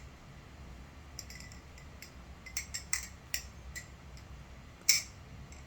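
NRB SLight titanium butterfly knife being flipped: its handles click and tap together in an irregular series of light metallic clicks, with one sharp, louder click near the end. The handles ring just ever so slightly, barely noticeable.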